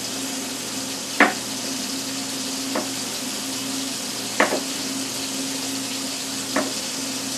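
Bacon sizzling in a frying pan as a steady hiss, with four short knocks against the pan spread through it.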